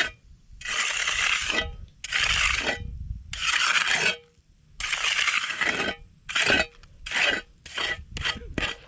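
A hand tool scraping across wet concrete in about nine back-and-forth strokes, the strokes getting shorter and quicker toward the end: the slab's surface being screeded and smoothed.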